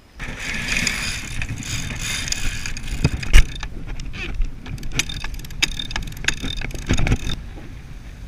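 Wind and water rushing past a heeled sailboat. From about three seconds in there is a run of sharp, irregular clicks and knocks from the cockpit sheet winch as a sheet is hauled in by hand around it, and they stop a second before the end.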